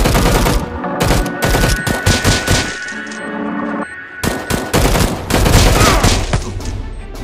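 Rapid automatic gunfire in long strings of shots, with a quieter break about three seconds in before a second long string.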